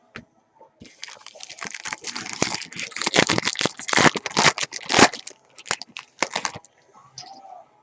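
Foil trading-card pack wrapper being torn open and crinkled in the hands, a dense run of crackling that starts about a second in, is loudest in the middle and dies away near the end.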